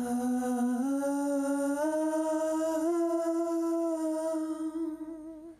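A male singer's falsetto backing-vocal layer, one held wordless note that steps up in pitch three times, then holds steady and fades out near the end.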